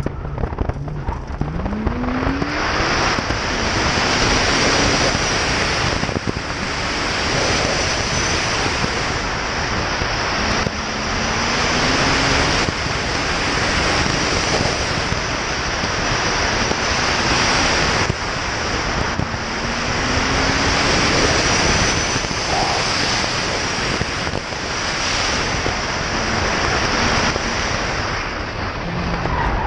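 Heavy wind rushing over the microphone of a moving car, with the 2011 Porsche Boxster Spyder's flat-six engine faintly rising in pitch several times as it accelerates.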